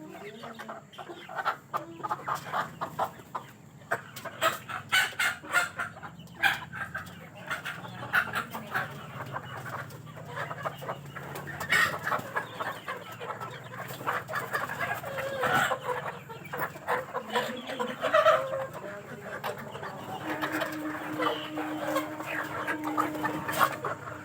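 A flock of chickens clucking and calling over one another, with a few longer drawn-out calls among them. A low steady hum runs underneath, and a steady tone joins about twenty seconds in.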